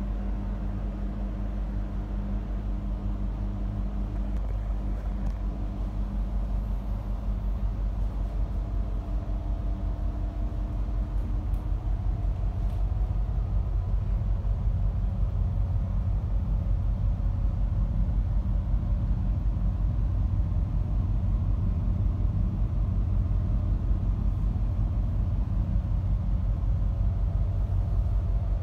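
Tug boat's engines running with a steady low drone and hum, heard from inside the wheelhouse; the drone grows slightly louder over the first half and then holds.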